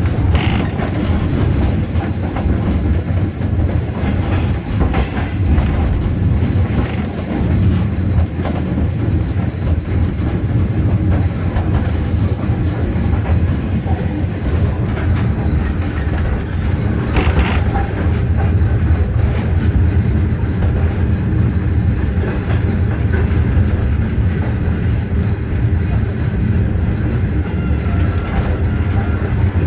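Train running along the track, heard from on board: a steady low rumble with rail clicks and clatter, and one louder burst of noise a little past halfway.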